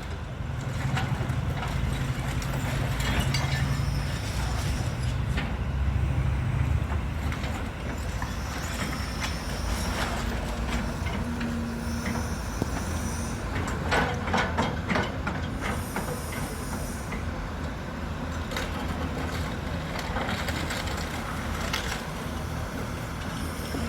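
A heavy vehicle's engine rumbles past in the first several seconds, then traffic noise carries on with scattered clanks and short high-pitched squeals like brakes.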